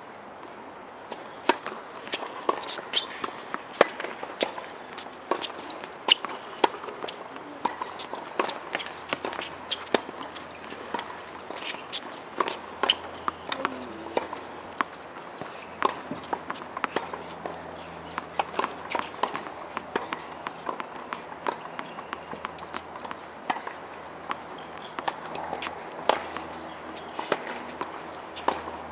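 Tennis balls struck by rackets and bouncing on a hard court: sharp pops at irregular spacing, the loudest every couple of seconds, among many fainter clicks and taps.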